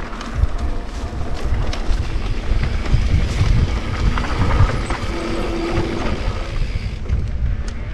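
Electric mountain bike riding over a dirt trail: a steady low rumble of tyres and frame over the rough ground, with scattered clicks and rattles. Wind buffets the microphone.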